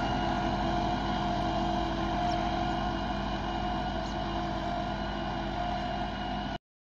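Massey Ferguson 375 tractor's diesel engine running steadily under load while it pulls a cultivator through the soil, easing a little as it moves away, then cutting off suddenly near the end.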